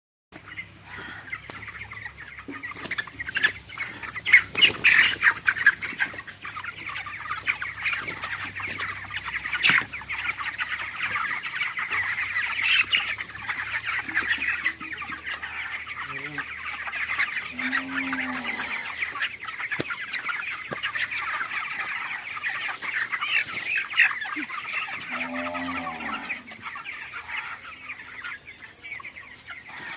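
A flock of chickens clucking and chattering continuously, with many short sharp notes. Two lower, drawn-out calls come near the middle and again about three-quarters of the way through. It is posted as a poultry 'sound problem', the poultry keepers' term for respiratory noise in a flock.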